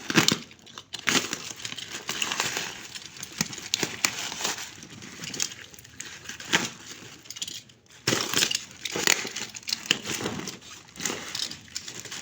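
Plastic parcel packaging being torn open and unwrapped by hand: irregular crinkling and rustling with sharp clicks and knocks.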